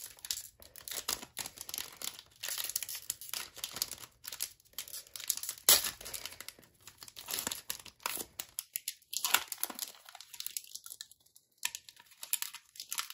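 Foil trading-card pack wrapper crinkling and tearing as it is peeled open by hand, in many irregular crackles with one sharp, louder crack a little before halfway.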